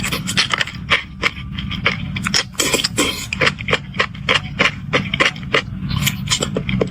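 Close-miked eating sounds: a rapid, irregular run of sharp wet mouth clicks and chewing noises, several a second, over a steady low hum.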